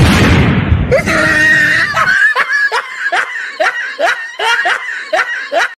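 A loud rush of noise that dies away over about two seconds, overlapped from about a second in by a long run of rapid laughter, about two to three 'ha' bursts a second.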